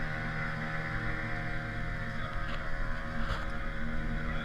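Small motorboat's engine running steadily underway, a constant drone, with water rushing along the hull.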